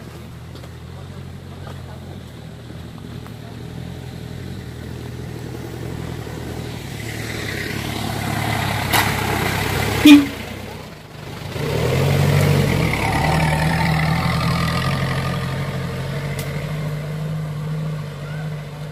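A motor vehicle's engine running steadily, growing louder over the first several seconds. There is a sharp knock about ten seconds in and a short dip, then the engine runs louder again.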